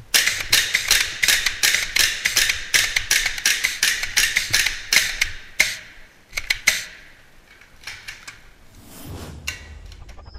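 Airsoft fire: a rapid string of sharp cracks and impacts, about four a second, for some five and a half seconds, then a few scattered ones about a second later before it dies down.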